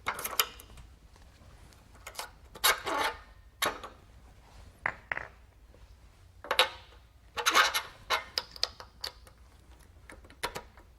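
Scattered metal clinks, taps and short scrapes of a steel beading die being fitted into a Baileigh PH-19 power hammer, with the hammer not running.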